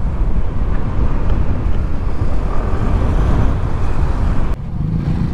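Wind rushing over a helmet-mounted microphone on a moving Yamaha Mio Gear 125 scooter, with the engine and road noise underneath. About four and a half seconds in the wind noise falls away suddenly, leaving the scooter's steady engine hum.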